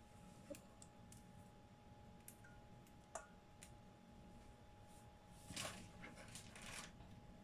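Mostly near silence: a few faint clicks, then a brief rustling and squishing about five and a half seconds in as a hand works in a stainless steel bowl of dressed rice noodles and herbs.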